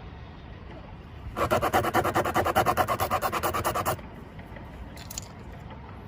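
Rubber of a tire being rasped for a puncture repair: quick, even scraping strokes, about ten a second, start a little over a second in and stop abruptly about four seconds in. A single small click follows about a second later.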